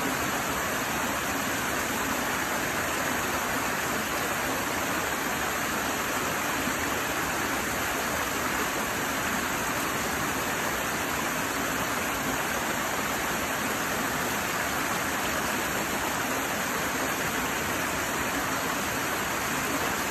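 Small rocky mountain stream cascading over boulders into a shallow pool, a steady rushing splash of falling water.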